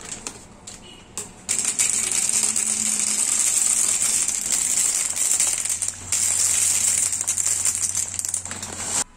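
Dry shell pasta poured from its packet into a stainless steel bowl: after a few light clicks, a dense clattering rattle of many small hard pieces hitting metal and each other starts about a second and a half in. It briefly eases about six seconds in, then cuts off suddenly near the end.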